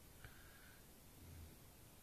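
Near silence: the faint breathing of a sleeping man between loud snores, with a soft low breath sound about a second and a half in.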